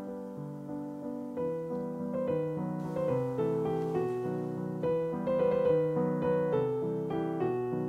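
Background piano music: a melody of struck notes over chords, each note fading after it is played.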